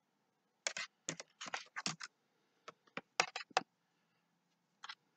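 Handling noise from a paracord keychain on a metal split ring being turned and worked in the hands: a quick run of short clicks and rustles starting about a second in, then one more near the end.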